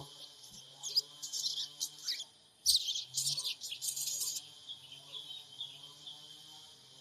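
Sogon bird calling in quick, high chirps and twitters: a short bout about a second in, a dense run of calls from just under three seconds in, then fainter trilling. This is a lure call of the kind used to provoke a caged sogon into answering.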